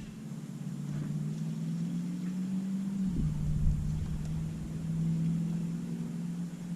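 A small boat motor running steadily with a low hum, its pitch stepping down a little about three seconds in.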